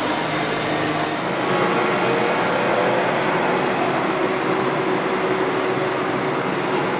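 Liebherr wheeled excavator's diesel engine running steadily while the machine lifts a heavy load.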